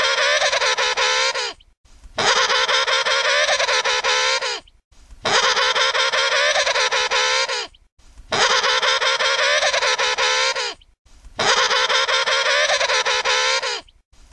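Emperor penguin trumpeting: a loud, wavering pitched call about two and a half seconds long. It is repeated five times, about every three seconds, with short silent gaps between.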